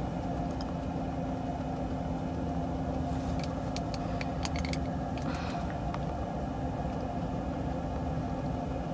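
Steady low hum of an idling engine, unchanging throughout, with a few faint clicks about three to five seconds in and a brief rustle just after.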